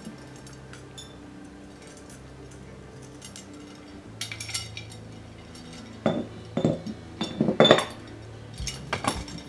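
Steel bicycle spokes clinking against the hub, rim and each other as they are threaded into the hub flange, in clusters of light metallic clinks, the loudest about three-quarters of the way through. Soft background music runs underneath.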